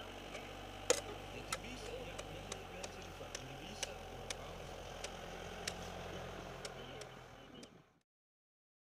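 Long-handled steel shovel pushing and spreading loose rubber mulch chips, with irregular sharp ticks and clicks over a low steady hum, fading out near the end.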